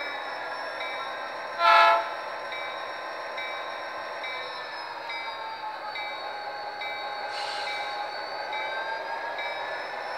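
Sound decoder of an HO-scale Athearn Genesis GP39X model diesel locomotive, playing the diesel engine running with the dynamic brakes on, their whine slowly rising and falling. A short horn blast sounds about two seconds in and is the loudest thing heard, and a brief hiss comes about seven seconds in.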